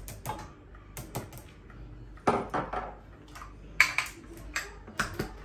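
Kitchenware being handled on a counter: a string of sharp clinks and knocks, with the loudest ones in a cluster about two seconds in and again just before four seconds.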